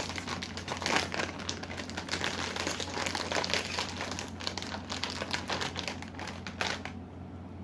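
Crinkly plastic bag of potato chips being handled and pulled open, with dense, irregular crackling rustles that die down near the end.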